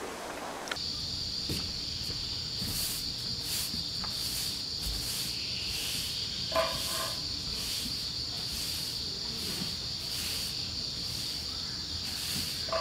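A steady, high-pitched insect drone, typical of summer cicadas, starting about a second in, with a straw broom swishing across the ground every second or so. A brief chirp sounds near the middle.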